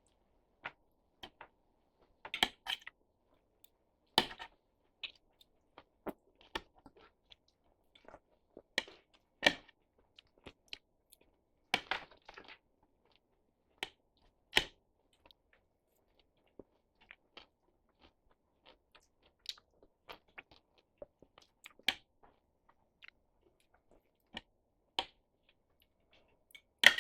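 A person chewing a mouthful of adobong sitaw, yardlong beans and pork in adobo sauce, with irregular short wet smacks and crunches.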